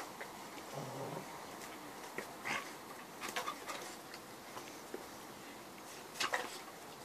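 Appenzeller and Entlebucher mountain dogs play-fighting, with scattered short, sharp scuffling and mouthing sounds; the loudest come in clusters about a third of the way in and near the end.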